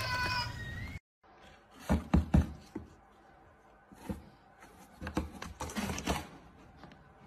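Knocks, taps and rustles on a cardboard box as a cat inside paws through its slot: a few sharp knocks about a second in, then lighter taps and scrapes. It opens with a short high-pitched cry that is cut off.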